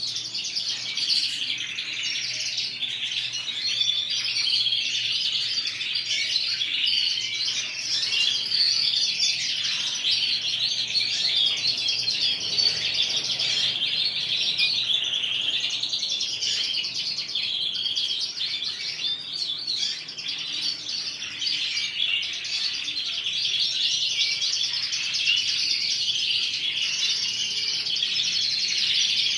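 A roomful of domestic canaries singing and chirping all at once: a dense, continuous chorus of quick high trills and tweets, the birds' lively early-morning calling.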